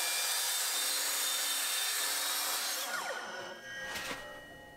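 A woodworking power tool runs on wood with a dense, steady hiss. About three seconds in it is switched off and its pitch falls as it winds down. A light knock follows near the end.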